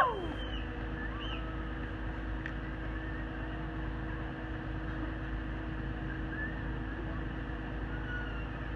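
Truck-mounted crane's engine running steadily, a low rumble with a constant hum over it. A couple of faint bird calls come over it, one about a second in and one near the end.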